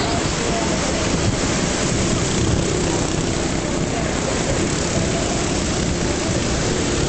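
Engines of several race cars running hard as a pack laps an oval track, their pitch wavering up and down as the cars pass.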